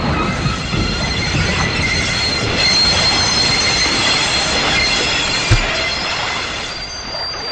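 Screeching sound effect: a harsh, loud metallic screech of several steady high squealing tones over a dense rushing noise, with a short low thud about five and a half seconds in.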